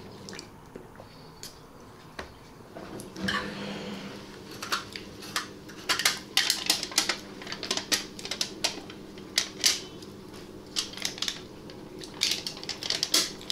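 Spoons clicking and clinking against dishes while eating at a table, a quick irregular patter of sharp clicks that grows busy about three seconds in, over a faint steady hum.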